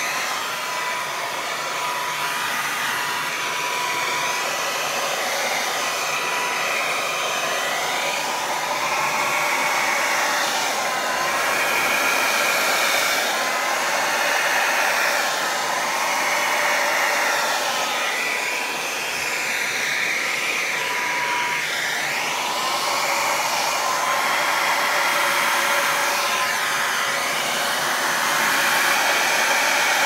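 Handheld hair dryer blowing steadily, its whine wobbling up and down in pitch as it is swept back and forth.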